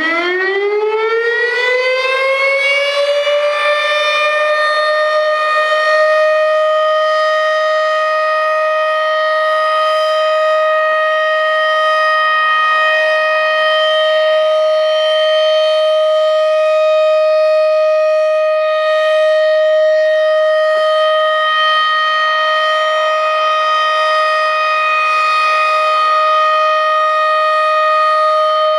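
Federal Signal Thunderbeam outdoor warning siren sounding its steady signal: it winds up, its pitch rising over the first few seconds, then holds one loud, level tone.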